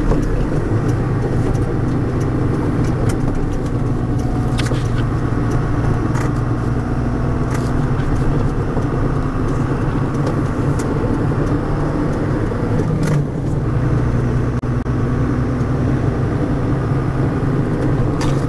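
MAN D0836 inline-six diesel engine and drivetrain of a MAN M39 18ML truck running steadily under way, with a few sharp clicks. The drivetrain carries a bad differential noise, which the driver puts down to lack of maintenance.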